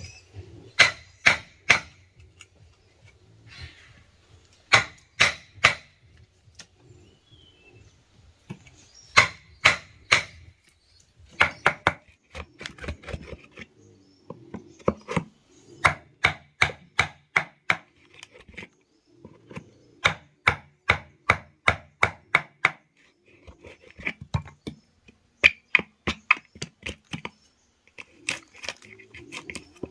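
Sharp strikes of a hand tool on wood, in bursts of several quick blows at about three to four a second, with short pauses between bursts.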